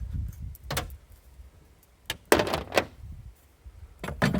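A few short knocks and clunks, the loudest about two and a half seconds in, over a low rumble of wind on the microphone at the start.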